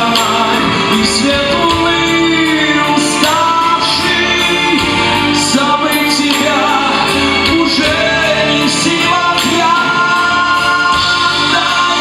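A live pop-rock band plays a song: a singing voice over electric guitar, bass guitar, keyboard and a drum kit, with a steady beat.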